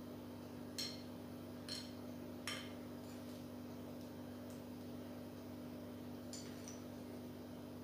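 Light clinks against ceramic dishes as almonds are taken from a saucer and dropped onto a bowl of food: three sharp clinks in the first few seconds, then two fainter ones later. A steady low hum sits underneath.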